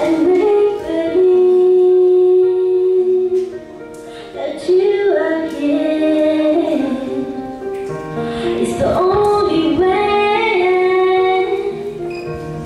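Female vocalist singing a slow pop ballad into a handheld microphone over instrumental accompaniment, with a long held note near the start and a brief breath between phrases about four seconds in.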